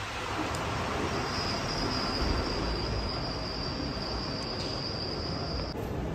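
Airport terminal hall ambience: a steady background hum of air handling and distant activity, with a thin, steady high-pitched whine that starts about a second in and stops shortly before the end.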